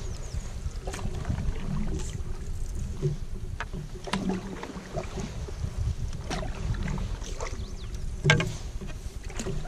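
Canoe being paddled: paddle strokes, dripping water and irregular knocks of the paddle and gear on the canoe hull, picked up by a camera mounted on the boat, with one louder knock near the end.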